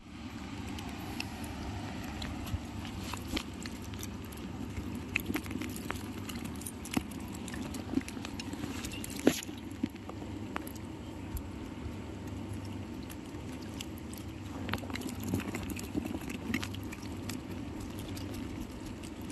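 Small live fish flapping and wriggling in a mesh keep net, giving scattered light taps and rustles, over a steady low rush of river water.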